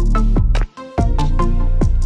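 Background music: an electronic track with a steady beat and pitched notes, with a brief break just before a second in.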